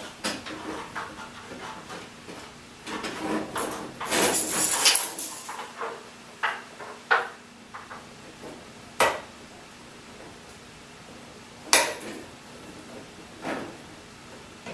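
Metal parts and a rubber drive belt clinking and knocking as a new belt is worked onto a garage door opener's drive. There is a rattling scrape about four seconds in, then several separate sharp clicks.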